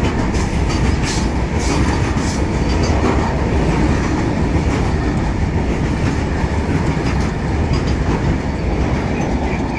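BCNAHSM1 covered freight wagons rolling past at speed close by: a steady, loud rumble of steel wheels on rail. A run of sharp clacks from wheels crossing rail joints is heard over the first two or three seconds.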